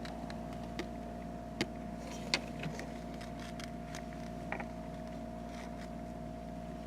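Steady low room hum with two faint steady tones, broken by a few faint clicks, picked up by a camcorder's built-in microphone.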